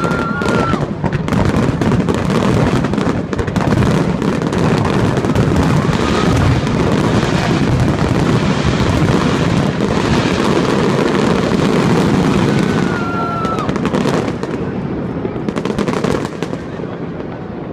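Fireworks going off in a dense, continuous barrage of bangs and crackles, with a couple of short whistles. The barrage eases off near the end.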